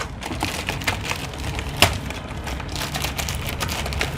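Scattered light clicks and rustling from a mechanical keyboard and its packaging being handled, with one sharper click about two seconds in.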